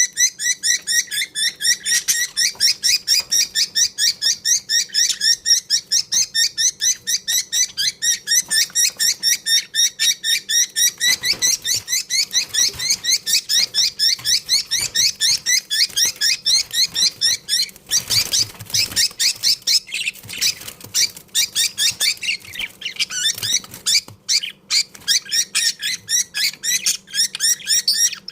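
Budgerigars chirping in a fast, steady stream of short repeated calls, about five a second, with a noisier flurry about two-thirds of the way through.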